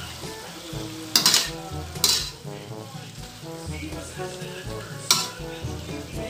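Slotted metal spatula scraping against a metal wok while stir-frying string beans and pork, with three sharp scrapes about a second in, about two seconds in and near the five-second mark, over the food sizzling.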